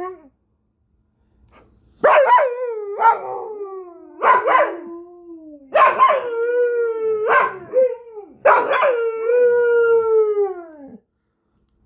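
Dog howling in a run of about six calls, each starting sharply and sliding down in pitch, the last one the longest.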